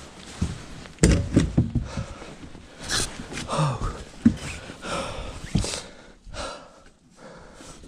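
A man breathing hard and gasping, out of breath from a long fight with a big fish, with a quick cluster of knocks and thumps about a second in as he moves around the boat.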